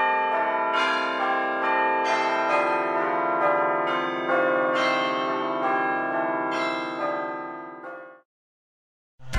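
A peal of bells: a run of overlapping struck bell tones that ring on and fade out about eight seconds in. Music with drums starts right at the end.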